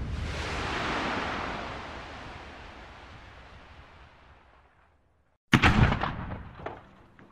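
Explosion sound effects: the long rumbling tail of a blast fading away over about four seconds. After a moment of silence, a second sharp blast hits, followed by a few crackling snaps as it dies down.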